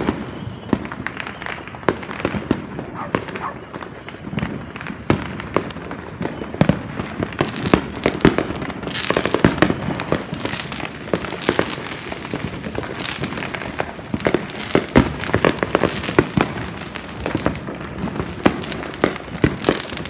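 Many fireworks and firecrackers going off at once: a constant run of pops and crackles, with louder bangs coming in clusters several times a second from about a third of the way in.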